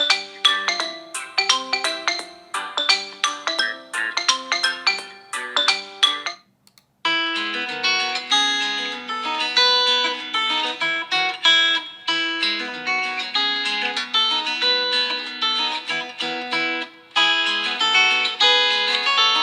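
Xiaomi POCO F2 Pro ringtones playing one after another. A tune of quick, sharply struck notes stops about six seconds in, and after a short pause a second, fuller melody begins.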